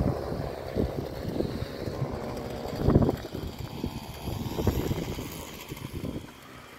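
Wind buffeting the microphone: an uneven, gusty low noise with a stronger gust about three seconds in, easing off near the end.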